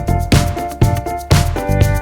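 Background music with a steady beat of about two hits a second.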